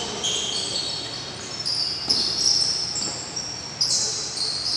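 Sneakers squeaking on an indoor basketball court in many short, high squeaks as players run and cut, with a basketball bouncing a few times.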